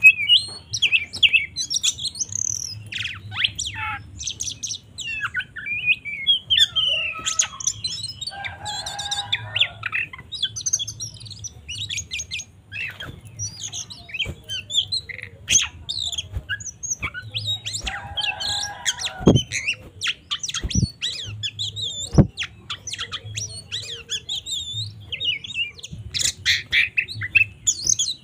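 Oriental magpie-robin (kacer) singing an aggressive 'fighting' song: a rapid, unbroken run of varied whistles, chirps and trills with harsh rasping notes mixed in. A few sharp low knocks sound a little past the middle.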